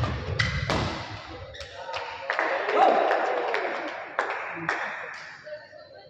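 Badminton rally: a series of sharp racket-on-shuttlecock hits, irregularly spaced, with people's voices in the hall behind them.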